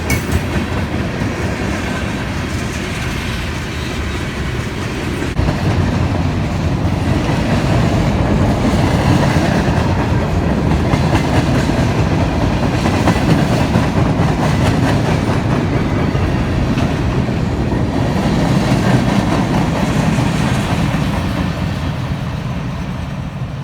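Mixed freight train's cars rolling past, wheels clacking on the rails. It gets louder about five seconds in and fades toward the end as the train goes by.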